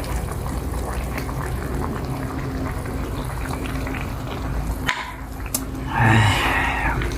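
Hotpot broth bubbling at a steady boil, with small clicks throughout and a short, louder noise about six seconds in.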